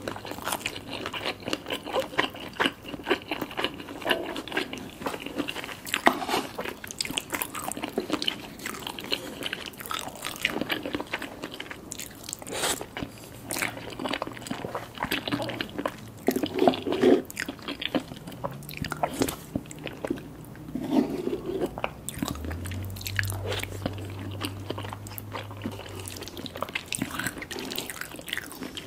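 Close-up eating sounds: a person biting and chewing food, with many short, sharp crunching and smacking sounds in quick succession.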